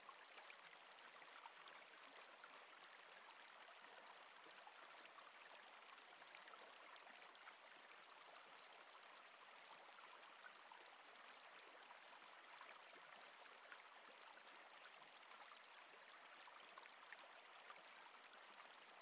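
Faint, steady sound of a river flowing, an even rush of water with small scattered splashes and gurgles.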